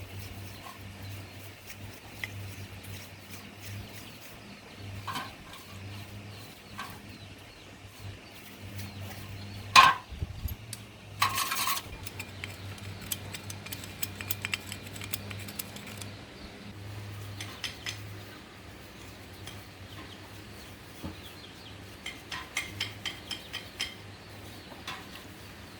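Metal tools and small metal parts clinking and knocking during motorcycle engine work. There is one sharp clang about ten seconds in and a short rattle just after, over a steady low hum.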